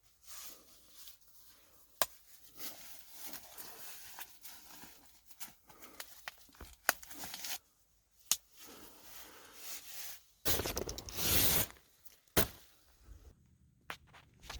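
Rustling and handling noises: scattered clicks and taps, with a louder stretch of rustling about ten seconds in that lasts about a second.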